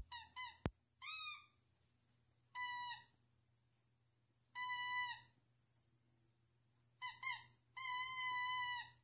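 A dog whining in a string of high-pitched cries, some short and sliding up then down, the longer ones held for about a second, the longest near the end.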